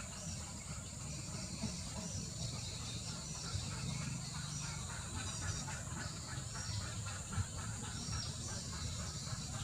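Outdoor nature ambience: a steady high insect drone with many short bird chirps over it, and a low rumble underneath.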